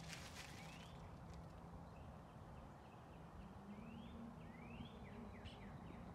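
Faint bird chirps, a few short rising calls about half a second in and again around four seconds, over quiet outdoor ambience with a low steady hum.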